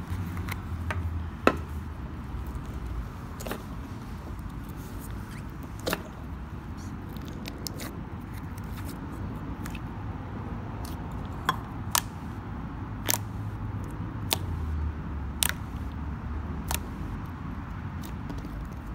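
Hands pressing and poking a thick mint-green Double Mint slime: soft squishing with sharp pops and clicks every second or two as air pockets in the slime burst.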